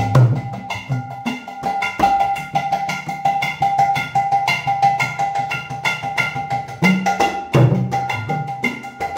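Clay mridanga (Bengali khol) played with both hands in a fast rhythm: sharp, ringing strokes on the small treble head that hold a clear pitch, mixed with deep bass strokes on the wide head.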